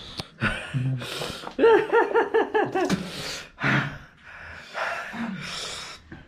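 A man's gasps and heavy breaths, with a quick run of short pitched 'ah' cries about two seconds in: a burning-mouth reaction to very spicy instant noodles.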